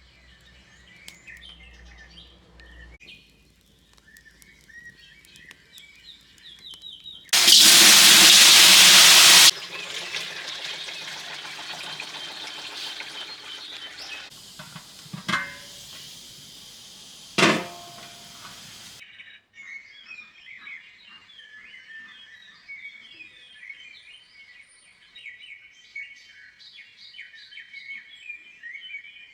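Songbirds chirping and singing. About seven seconds in, a loud hiss lasting about two seconds settles into a quieter sizzle of cooking in a cauldron, with two sharp clinks. The sizzle cuts off abruptly and birdsong carries on.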